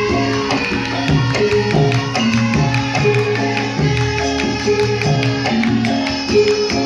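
Live band music: a repeating melody over steady drum strokes.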